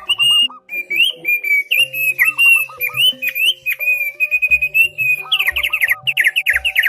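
A songbird singing a fast string of clear whistles and sweeping notes, breaking about two-thirds of the way in into a rapid run of sharp descending strokes. Background music with a pulsing bass runs underneath.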